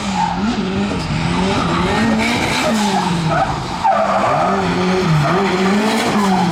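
A drift car's engine rising and falling in pitch again and again as the throttle is worked through a slide, with tyres skidding on a wet track.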